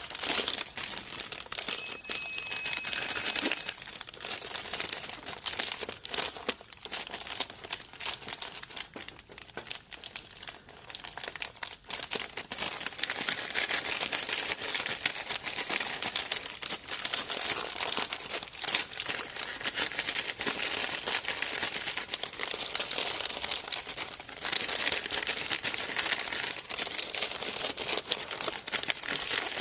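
Foil snack-chip bags crinkling steadily as they are handled and flattened to slide into a tight vending-machine slot. A steady high beep sounds for about two seconds near the start.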